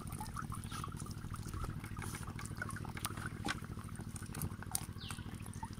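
Water trickling and dripping from a woven bamboo fish trap just lifted from the water, with scattered light taps and rustles from the small tilapia fry and a hand moving among them inside it.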